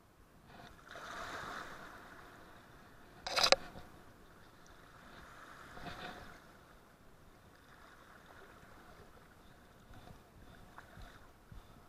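River water washing against the rocks at the bank, swelling twice, with one brief sharp noise about three and a half seconds in.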